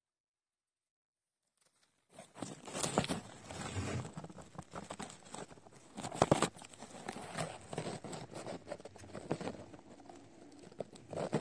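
Camera handling noise: irregular rustling and scraping as the camera brushes through artificial plant leaves and against driftwood. It starts about two seconds in after silence, with a louder knock about six seconds in.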